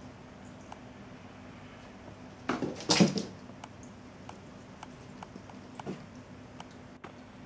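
Cats scrambling and landing on a wooden floor while chasing a laser dot: a loud clatter of paws and claws lasting under a second about three seconds in, and a smaller knock near six seconds, over light, irregular ticks.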